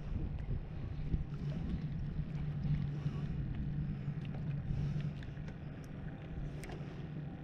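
Wind and water noise as a kayak moves slowly across choppy open water, with small splashes against the hull and a steady low hum underneath.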